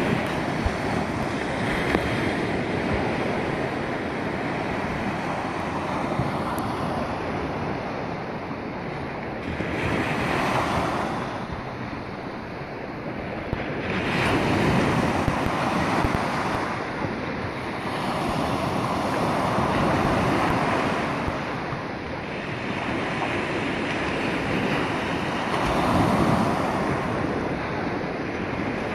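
Ocean surf washing in around waders, a steady rush that swells every several seconds as each wave comes through, with wind buffeting the microphone.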